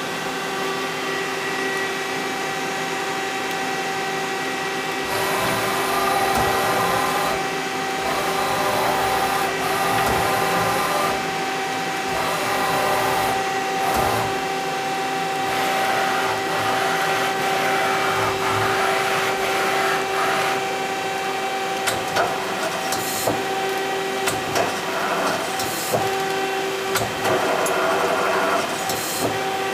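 Daewoo Puma 10HC CNC lathe running under power: a steady machine hum, joined about five seconds in by a louder whirring as the tool turret travels, and a run of sharp clicks and clunks in the last several seconds as the turret moves and indexes.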